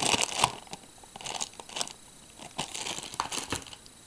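Clear plastic bags holding the accessory cables crinkling as they are handled, in irregular bursts, loudest just after the start.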